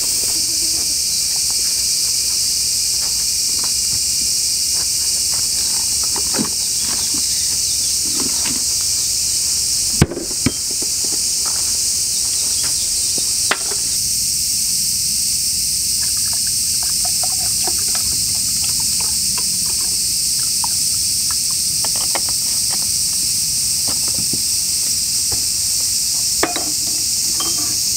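A steady, high-pitched chorus of insects runs throughout. Scattered light clicks and knocks of tableware being handled come over it, with the sharpest knock about ten seconds in.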